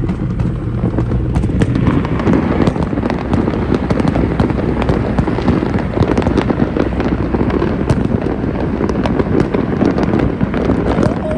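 Many fireworks and firecrackers going off at once, a dense, irregular crackle of pops with no pause, heard from a moving car over its steady low road rumble.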